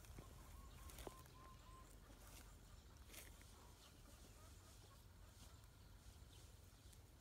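Near silence: faint outdoor background with a low rumble. A bird gives a quick run of short, even notes in the first two seconds, and there are a few faint clicks.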